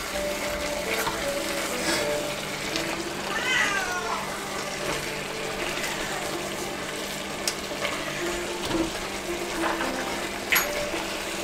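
Oxtail pieces sizzling steadily as they brown in a Dutch oven, with a few sharp clicks of a utensil against the pot as the pieces are turned. About three and a half seconds in comes a short falling cry.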